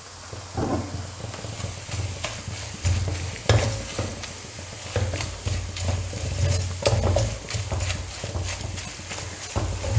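A spatula scraping and stirring onion, tomato and ground spice masala as it fries in oil in a kadai, with a steady sizzle underneath; the masala is being roasted until it loses its raw smell. The scrapes come about once or twice a second over a low steady hum.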